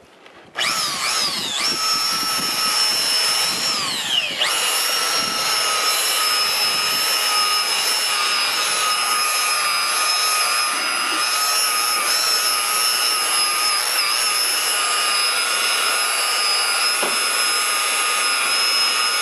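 Electric buffer (rotary polisher) switched on about half a second in. Its whine falls in pitch over the next few seconds, then runs steadily as it buffs stain overspray off the boat.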